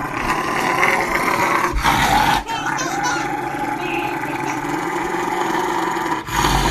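An animal growling continuously, a long drawn-out growl with a brief break about two and a half seconds in.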